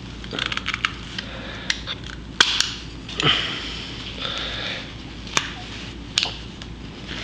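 Light clicks and clinks of a hand tool on a small aluminium plate, with a couple of short rasps near the middle.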